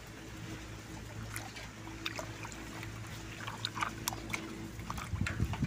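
Water in a basin of muddy water sloshing and dripping as a hand swishes a mud-covered toy car through it to wash it clean, in small irregular splashes that grow busier near the end. A steady low hum runs underneath.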